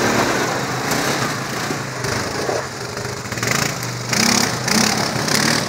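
Quad ATV engines running as the machines ride off one after another up a muddy trail.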